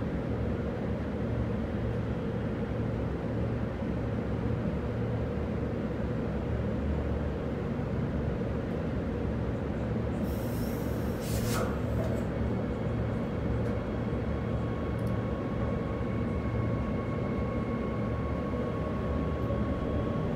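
Cabin sound of a Bombardier B-series electric multiple unit running: a steady rumble of wheels on track. A brief hiss comes about halfway through, then a thin electric whine sets in and begins to rise in pitch near the end.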